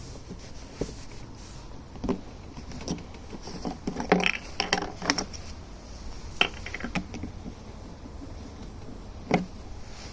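Metal tools clinking and rattling in a few short clusters over a steady low hum, with a single sharper clank near the end.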